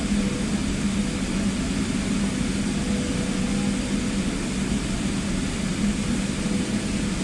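Steady cabin noise inside a jet airliner: the even rush of engines and airflow with a low, constant hum.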